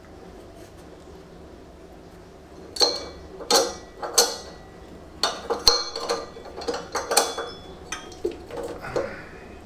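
Metal fan pulley half and its thin spacer plates clinking and scraping against each other as they are slid by hand onto the alternator shaft of a Fiat 500 engine. A quick run of sharp metallic clinks starts about three seconds in and lasts to near the end.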